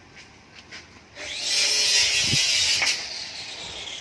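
Electric power saw cutting wood: it starts about a second in, runs loud and high-pitched for under two seconds, then drops to a lower, fading run.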